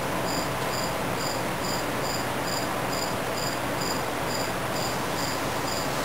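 Airbrush spraying paint: a steady hiss of air, with a high chirp repeating about twice a second.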